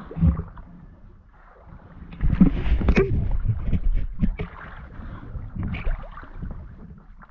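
Water splashing and sloshing around a swimming spearfisher, uneven and louder for a couple of seconds in the middle.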